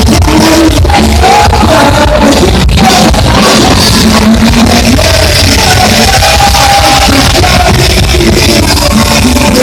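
Live band playing loudly with a singer holding long sung notes over the band.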